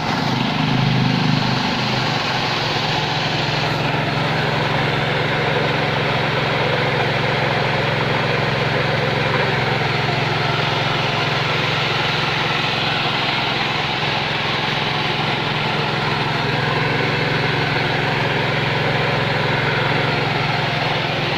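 KD 580S rice machine (mesin padi) running steadily under power, a constant engine-and-machinery hum that settles in its first couple of seconds and then holds an even speed.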